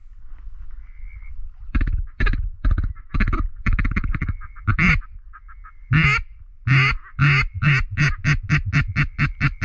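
Duck call blown by a hunter: a series of loud single quacks, spaced out at first, then quickening into a fast, even run of about four quacks a second near the end.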